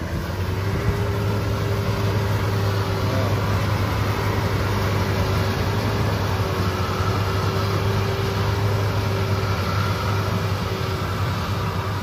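Bimo rice combine harvester running steadily as it works the paddy, a constant engine hum with a steady whine over it.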